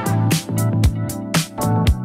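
Electronic background music with a steady drum beat, about two beats a second, over sustained synth chords.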